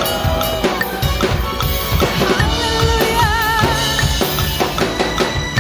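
Drum kit played at 151 beats per minute along to a worship-song backing track: steady kick and snare hits with cymbals, over a metronome click. A held melody note with vibrato sounds in the track about three seconds in.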